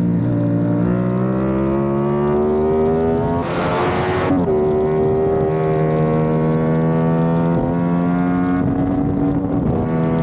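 Yamaha YZF-R7's parallel-twin engine running hard on a racetrack, its pitch climbing slowly as the bike accelerates. About four seconds in a short rush of noise breaks in and the pitch steps, and it changes again near the end.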